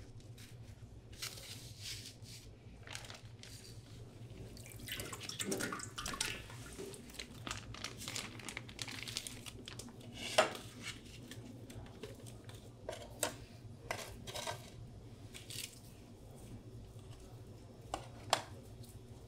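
Gloved hands handling slices of raw tuna and plastic food trays: soft rustling and scattered small clicks and taps, with a sharp knock about ten seconds in and another near the end, over a steady low hum.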